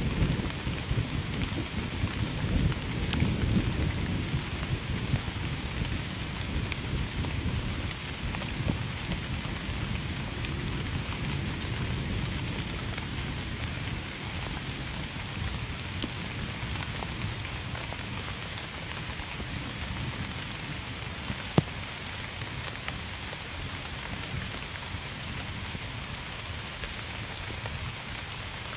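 Steady rain falling, a dense even patter. A low rumble sits under it for the first several seconds and eases away, and one sharp tick stands out about three-quarters of the way through.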